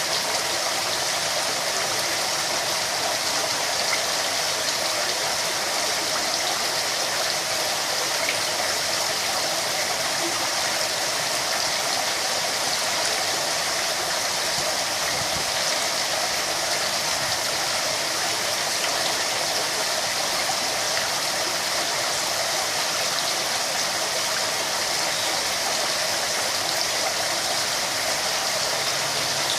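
Water running steadily into a koi pond, an even, unbroken rush.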